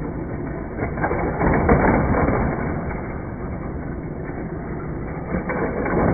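Hot Wheels toy cars whirring and rattling around plastic track loops, driven by the set's central motorized booster, which runs steadily. The sound swells about a second in and again near the end as cars pass through.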